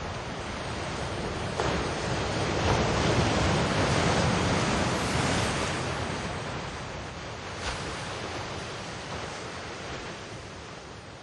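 Ocean surf: a rushing wash of waves that swells over the first few seconds and then slowly fades away.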